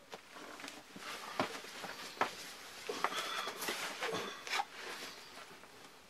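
Hands handling a leather strip and a Swiss Army knife on a wooden surface: irregular rustling and scraping with several light knocks, and a sharp click right at the start.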